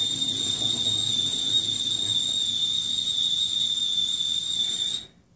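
A steady high-pitched whine, one unchanging tone with a fainter overtone above it, over faint low sound. It cuts off abruptly about five seconds in.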